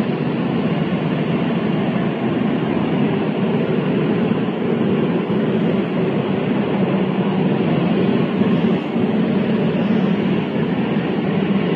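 Pink noise played steadily through a pickup's car sound system: an even, unbroken hiss used as the test signal while the system is equalized with a real-time analyzer.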